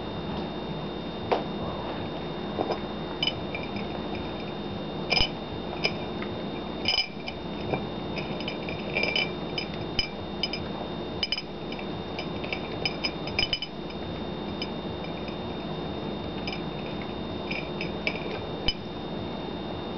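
A cat eating from a ceramic bowl on the floor: irregular light clinks against the dish, sometimes in quick little clusters. A steady background hum runs underneath.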